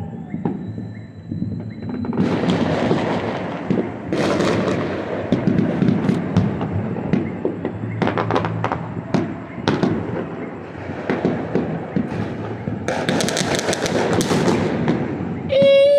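Many fireworks going off across a city: a steady run of distant bangs and crackling that thickens from about two seconds in, with a dense stretch of crackle near the end. A loud held tone starts just before the end.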